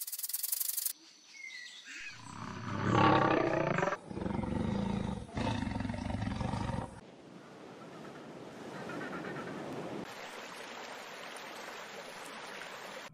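Male lion roaring: three deep, loud bouts back to back between about two and seven seconds in, the first the loudest. A brief rattle comes in the first second, and after the roars only a fainter even noise.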